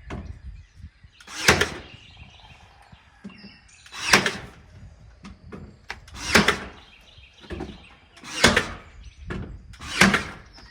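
A series of five loud, short thuds, one about every two seconds.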